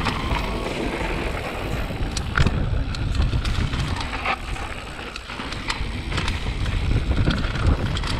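Mountain bike rolling fast down a gravel trail: wind buffeting the microphone with a steady rumble, tyres crunching over loose gravel, and scattered clicks and rattles from the bike.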